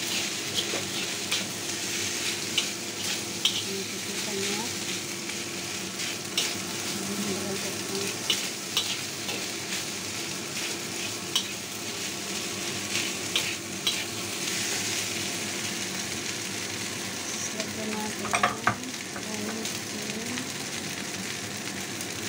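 Fried rice sizzling in a wok while a metal spatula stirs and scrapes through it, with irregular clicks of the spatula against the pan. A few louder knocks come close together late on.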